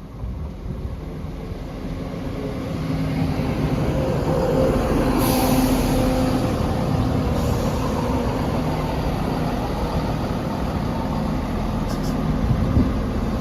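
Class 170 Turbostar diesel multiple unit's underfloor diesel engines running at the platform, a steady drone that grows louder over the first few seconds. About five seconds in, a hiss of air rises over it for a couple of seconds, and there are a couple of clicks near the end.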